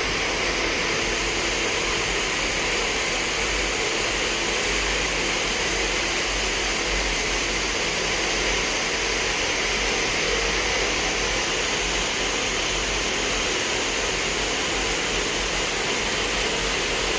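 Nylon zipper sewing machine running at speed: a continuous, even mechanical whir and hiss with a low hum beneath, with no pauses or changes.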